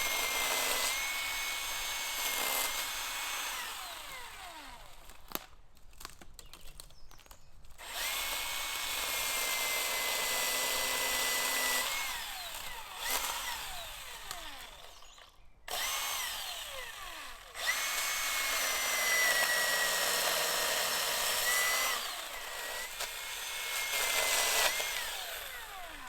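Electric chainsaw cutting branches off a log: a high steady motor whine in four or five runs of a few seconds, each winding down with a falling whine when the trigger is released.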